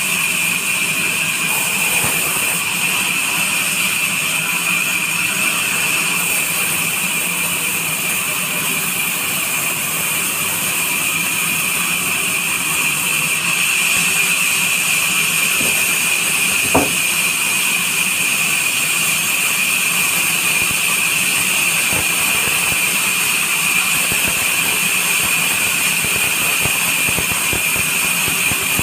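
Large vertical sawmill band saw running and ripping a neem log lengthwise: a steady high whine over the machine's running noise, with one sharp knock about 17 seconds in.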